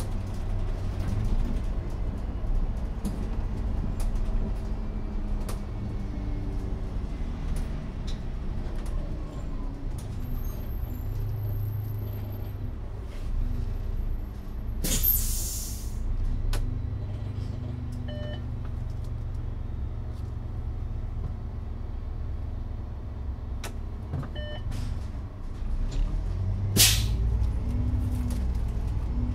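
Iveco Urbanway 12 natural-gas city bus heard from inside, its engine running and changing pitch as it drives. About halfway through there is a loud compressed-air hiss lasting about a second and a half, and a shorter one near the end, with two short beeps in between.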